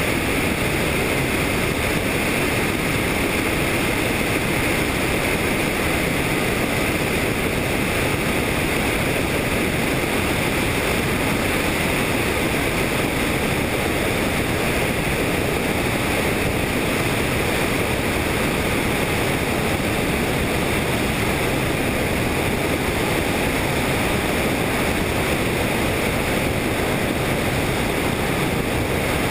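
Helicopter in flight heard from on board: a loud, steady, unbroken rush of rotor and engine noise mixed with wind.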